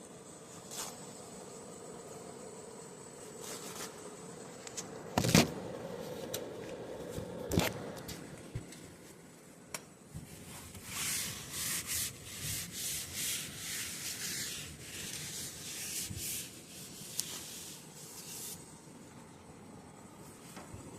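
A couple of sharp knocks, then several seconds of rhythmic rubbing or scrubbing strokes, about two a second.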